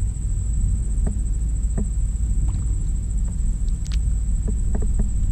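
Wind rumbling on an action camera's microphone while a kayak is poled through shallow water, with scattered small clicks and splashes from the pole and hull. A thin, steady high whine runs under it.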